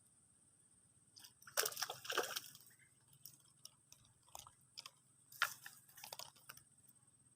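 Wet sloshing and crackling noises in two short clusters, about a second in and again about five seconds in, over a faint steady high-pitched hum.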